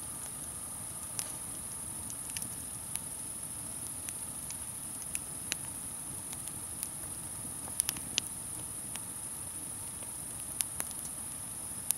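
Campfire crackling: scattered sharp pops at irregular intervals, a cluster of the loudest ones about eight seconds in, over a steady high hiss.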